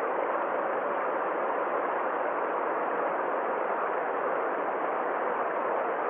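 Stream water rushing over a small rocky cascade, a steady, even rush with no breaks.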